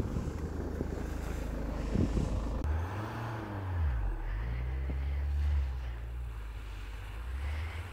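Range Rover Evoque's engine pulling the car through deep snow. The engine note swings down and back up a little after three seconds, then holds steady.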